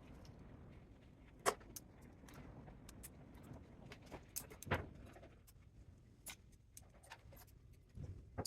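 Scattered clicks and knocks of tools and metal parts being handled during the teardown of a spot welder for scrap, with two louder knocks, one about a second and a half in and one near five seconds.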